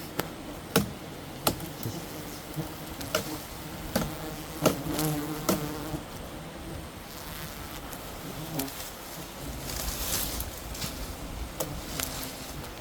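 Wild bees buzzing in a swarm, with sharp clicks and knocks every second or two.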